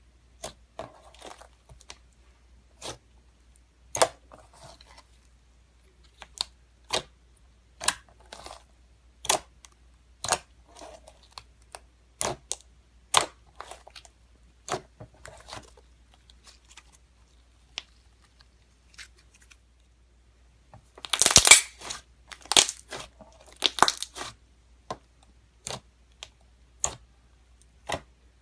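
Slime being handled, giving off sharp clicks and pops about once a second, with a louder stretch of close-spaced crackling about three-quarters of the way through.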